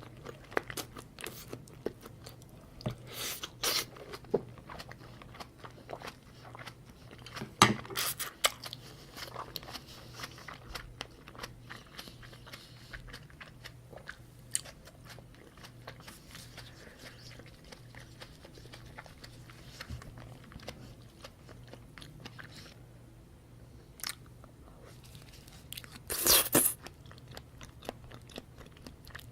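Close-miked eating of salmon and salmon rolls: wet chewing and biting with scattered sharp clicks and small crunches, and a louder noisy burst lasting about a second near the end.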